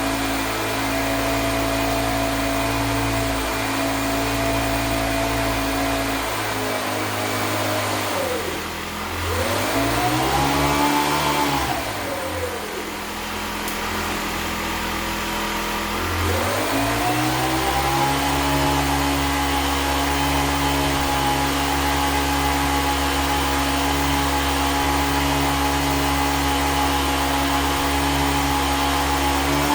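A motor running with a steady whine. About six seconds in it slows, briefly speeds up and slows again, then after about sixteen seconds it speeds back up to a steady run.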